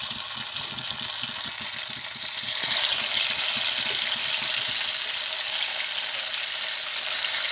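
Hot oil sizzling and bubbling hard around pieces of marinated chicken just put into a frying pan to fry: a steady hiss that grows louder about three seconds in.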